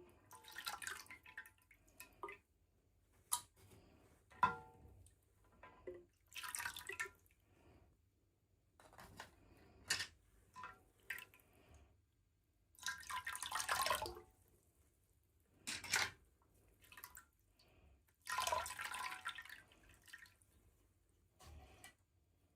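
Scattered small clicks and taps with a few short rustling bursts, from handling toy dolls and their plastic packaging.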